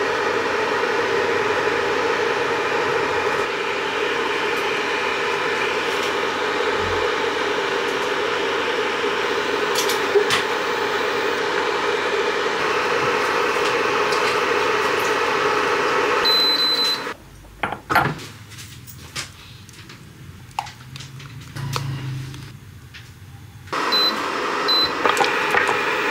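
Portable induction cooktop running with a steady fan whir, with a short high electronic beep about 16 seconds in and a double beep near the end. For several seconds in between, the whir drops away, leaving only a few faint clicks.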